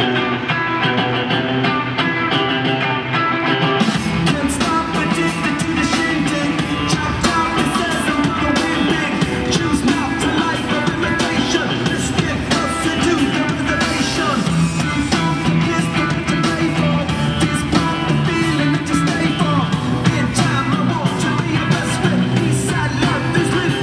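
Loud rock music with guitar and singing; drums and bass come in about four seconds in, filling out the sound.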